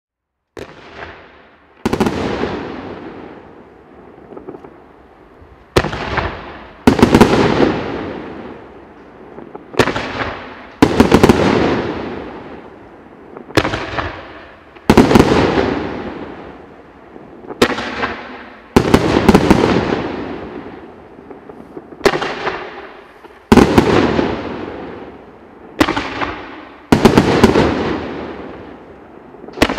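A consumer firework cake, a 50-shot 30 mm fan of gold brocade crown shells with green strobe, firing in volleys about every four seconds. Each volley is a sharp lift thump from the tubes, then about a second later the louder break of the shells overhead, trailing off over a couple of seconds.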